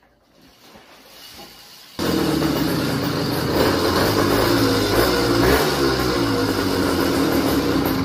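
A motorized bicycle's small two-stroke kit engine comes in suddenly about two seconds in and runs loud, its pitch rising and falling as the throttle is worked, then dies away at the very end as it is shut off.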